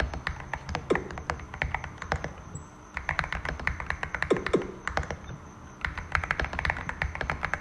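Typing on a Cidoo V65 mechanical keyboard with Glorious Panda 67g tactile switches, foam- and tape-modded: rapid runs of key clacks in three bursts with short pauses between, and a few deeper, heavier key strikes.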